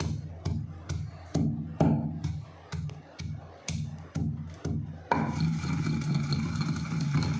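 A wooden pestle pounds almonds and seeds in a stone mortar, with sharp, regular knocks a little over two a second. About five seconds in, a steady motor-like drone starts suddenly and continues under fainter strokes.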